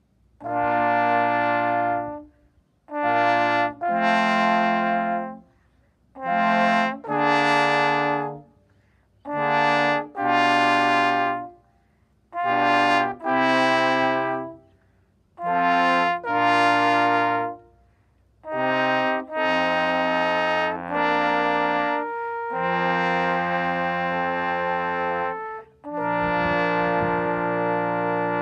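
Trombone quartet playing held chords in six short phrases, each about two seconds long and followed by a brief pause. The playing then turns continuous, with the chords changing, for the last third.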